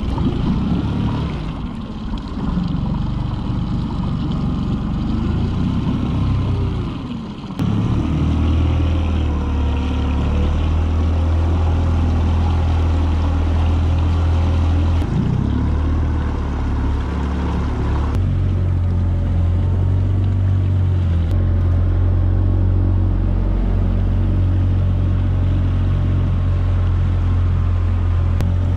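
Honda four-stroke tiller outboard running the boat along at speed, a low engine drone with the wash of water. The sound wavers for the first several seconds, then settles into a steadier, louder drone about seven seconds in.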